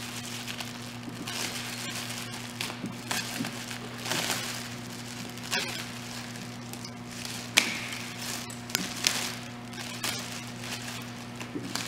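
Clear plastic wrapping on a snowblower handlebar crinkling and rustling as it is cut with scissors and pulled off, with a few sharp clicks along the way.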